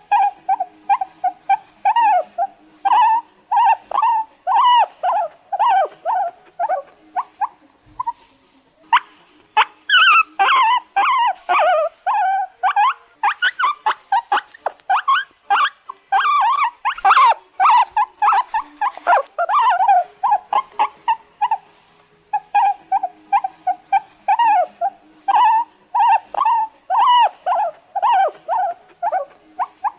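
Guinea pig squealing: a rapid run of short, high, repeated squeaks several times a second, getting louder and more frantic from about a third of the way in, then settling back to evenly spaced squeaks near the end.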